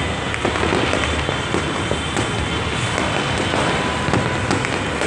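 Many fireworks going off at once: a dense, continuous crackling din with many small sharp pops scattered through it.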